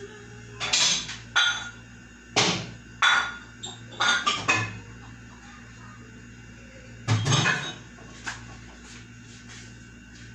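Cookware and utensils being handled on a kitchen stove and counter: a string of short knocks and clatters, with a pause between about five and seven seconds, over a steady low hum.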